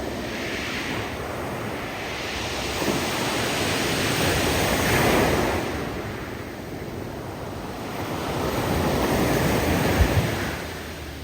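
Surf breaking on a steep beach of loose cobbles, swelling and ebbing twice, with the hiss of the rocks tumbling in the surf as the waves draw back. A sharp low thump comes near the end, as a wave hits.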